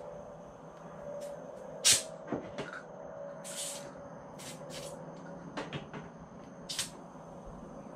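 Air chuck being pressed onto the Schrader valve of Monroe 756 air shocks, letting compressed air in with several short hisses about a second apart as the shocks are pumped up, with light clicks and knocks between. A faint steady hum runs underneath.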